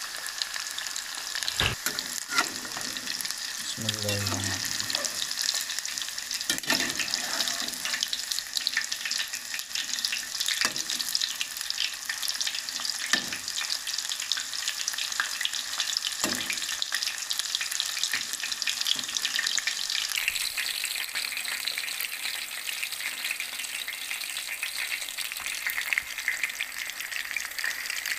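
Chicken pakoras deep-frying in hot ghee in a steel kadai: a steady, dense crackling sizzle, with a few sharp knocks now and then.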